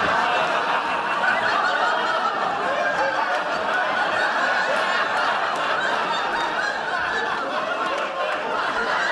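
Sitcom studio audience laughing, a sustained crowd laugh of many voices that holds at an even level throughout.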